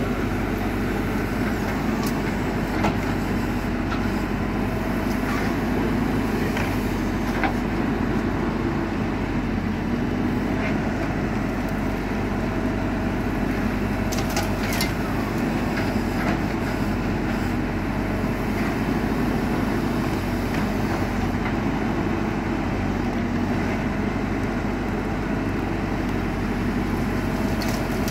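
JCB 4CX backhoe loader's diesel engine running steadily under working load, with a few sharp knocks during the work.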